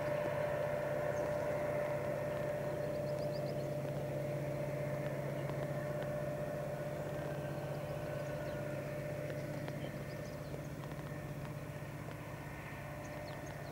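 Diesel locomotive engine running unseen at a distance, a steady low drone with a steady whine above it, slowly fading.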